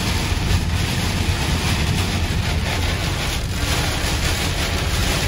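Heavy rain pelting a car's windshield and body, mixed with tyre noise on the waterlogged road, heard from inside the moving car: a steady, even rush.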